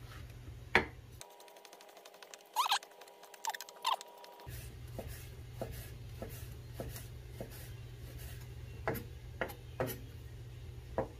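Kitchen knife slicing raw fish fillets into sashimi on a wooden cutting board: soft, irregular taps of the blade on the board, a few strokes a second, over a low steady hum.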